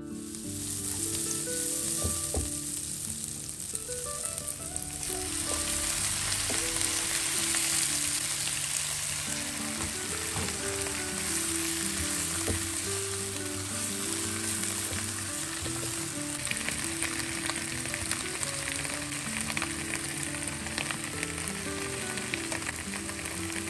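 Bok choy and onion stir-frying in a nonstick wok, a steady sizzle that grows louder about five seconds in, with the spatula scraping and tapping the pan now and then. Soft background music plays under it.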